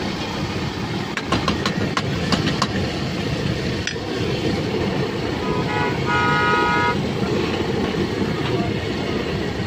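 Busy street background: a steady low rumble of traffic with a few sharp clicks early on, and a vehicle horn sounding one steady note for about a second and a half near the middle.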